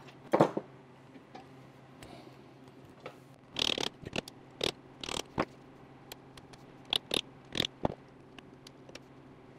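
Steel pick and circlip pliers scraping and clicking on a universal joint's circlip and yoke while the clip is worked out of its groove. There is a louder clatter about half a second in, then a series of short, sharp metallic scrapes and clicks.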